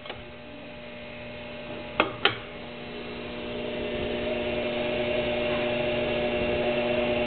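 Two circuit breakers snapped on, two sharp clicks a third of a second apart, followed by a steady electrical hum with a few held tones that slowly grows louder as the inverter's AC output powers up.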